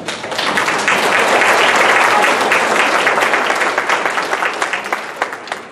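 Audience applauding: many hands clapping at once, starting abruptly, strongest in the first couple of seconds and tapering off near the end.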